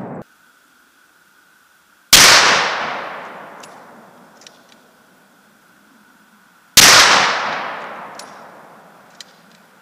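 Two shots from a .416 Ruger bolt-action rifle, about four and a half seconds apart, each with a long echo that dies away over a couple of seconds. A few faint clicks come between the shots.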